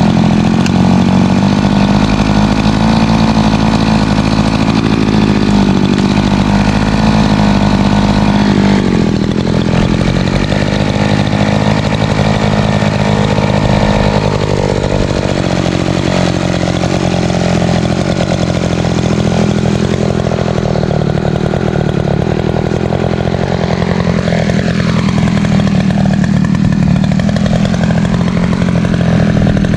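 Echo CS590 Timberwolf two-stroke chainsaw running at high revs, ripping lengthwise through a black ash log on a chainsaw mill. It runs steadily, its pitch wavering a little with the load of the cut.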